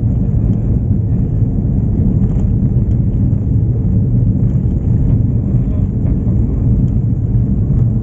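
Steady low rumble of a vehicle on the move, its engine and tyres running on a concrete road.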